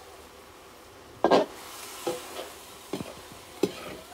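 A metal ladle stirs and scrapes meat and onions frying in a steel wok. It knocks against the pan four times, loudest about a second in, over a faint sizzle.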